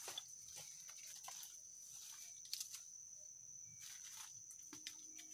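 Faint, steady high-pitched insect drone, with scattered crackles and rustles of dry stems and dead leaves being pulled and handled.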